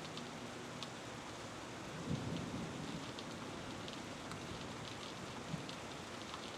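Steady rain with scattered drips, and a brief low rumble of thunder about two seconds in.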